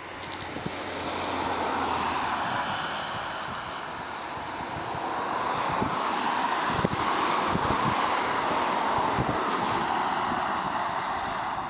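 Airbus A320 jet engines on approach to land, a continuous rushing sound that swells, eases a little and swells again, loudest in the second half. A car passes on a nearby road at the same time.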